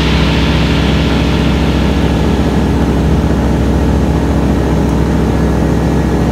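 Light aircraft's piston engine and propeller running steadily, heard from inside the cockpit, with a hiss that fades over the first second.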